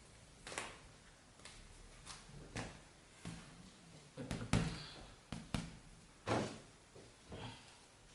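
A string of irregular dull thumps and knocks from 16-ounce boxing gloves being handled and tried on, the loudest about four and a half and six seconds in.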